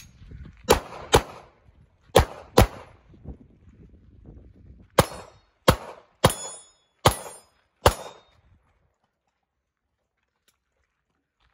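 Pistol shots fired on a USPSA stage, about ten in all. The first shots come in quick pairs, then five more follow singly about half a second to a second apart.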